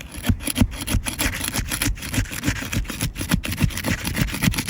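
A steel flat bar scraping and ripping along the sealant line between roof shingles in a quick series of short strokes as the bonded tabs are pried apart. The sealant is holding fast, so the shingles tear and shred instead of releasing cleanly.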